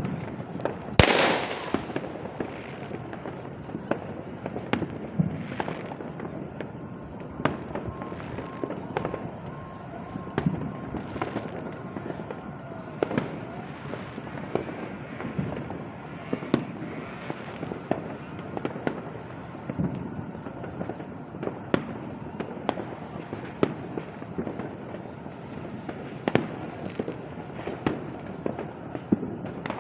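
New Year's Eve fireworks and firecrackers going off in many places at once: a continuous crackle of bangs with frequent sharper pops at irregular intervals, the loudest about a second in.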